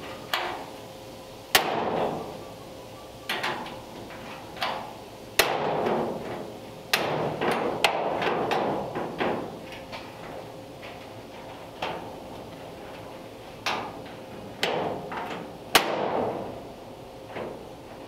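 The skinned steel door of a Ford Model A roadster being swung shut against its latch catch again and again to test whether it latches, giving a string of sharp metallic clanks at uneven intervals, each with a short ring.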